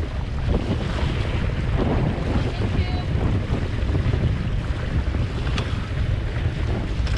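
Wind buffeting the microphone in gusts over water rushing and splashing along the hull of an Impulse 26 sailboat under way.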